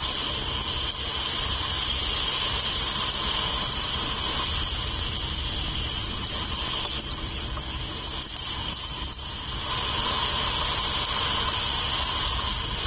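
Steady chorus of insects, a continuous high drone that fades for a couple of seconds past the middle and then comes back, over a low rumble.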